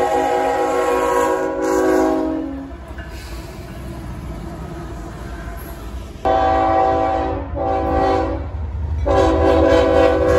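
Locomotive air horn sounding a steady chord until about two and a half seconds in, then the rumble of a passing train for a few seconds. The horn then starts again suddenly, with a brief break in the middle, and sounds once more near the end.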